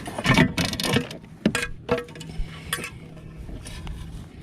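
A handful of knocks and light clinks from handling, most of them in the first two seconds and fewer and quieter after about three seconds in, as a freshly caught smallmouth bass is laid out to be measured.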